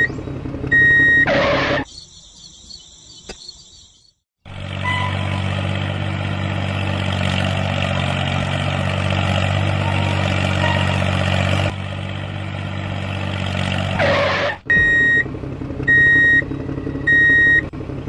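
Reversing-alarm beeps, two at the start and four more near the end, about one every 1.2 seconds. Between them come a whoosh, a short high hiss, and about ten seconds of a steady engine-like running sound.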